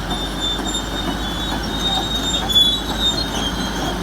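Komatsu D375A crawler bulldozer working: its six-cylinder turbo-diesel runs loud and steady, and its steel tracks give off short, high-pitched squeals on and off.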